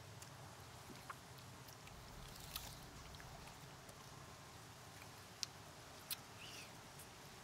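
Ice pops being licked and sucked: a few faint, scattered wet smacks and clicks over a quiet, steady background.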